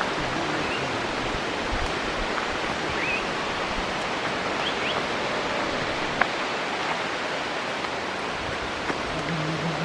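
Steady rushing of a high-flowing waterfall and stream, heard from the forest trail beside it, with a few short faint chirps and a single click about six seconds in.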